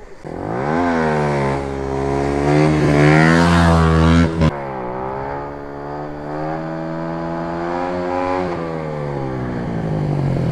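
Motorcycle engine accelerating hard, its pitch climbing through the revs, with a short break and a drop in pitch about four and a half seconds in as it changes gear, then climbing again before easing off.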